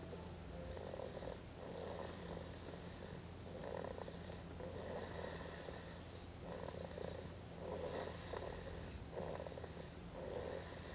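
Snoring: a steady run of short rasping snores, one about every second or so, over a constant low hum.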